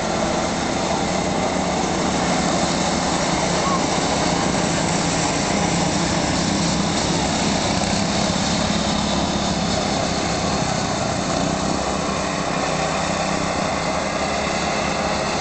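Small engines of several go-karts running together as they circle a track, a steady drone.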